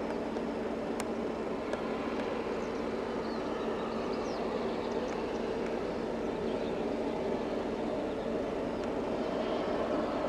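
Distant diesel locomotive hauling a heavy freight train, a steady engine drone that swells a little toward the end. Birds chirp faintly over it.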